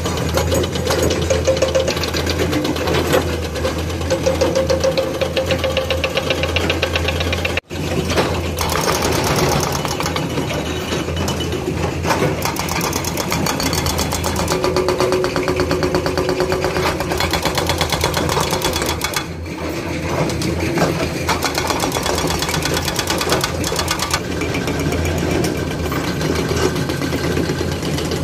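Hydraulic excavator's diesel engine running steadily with a fast, even throb while it digs, its pitch shifting a little under load. The sound cuts out for an instant about eight seconds in.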